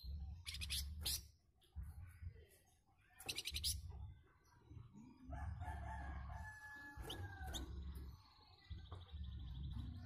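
A caged flamboyan songbird gives short, harsh, rapid chattering bursts, twice in the first four seconds: its characteristic dense, rough song. About five seconds in a longer, lower drawn-out call from another bird follows, then a short rising whistle and a high trill.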